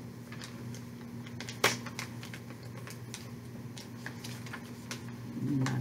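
Hands handling small plastic packets: scattered light clicks and crinkles, with one sharp click about one and a half seconds in.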